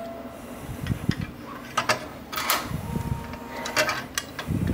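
Sheet-metal heat shield panels of a Kaleido coffee roaster being handled and fitted onto the roaster body: scattered metallic clicks, knocks and light rattles as the panels meet the frame.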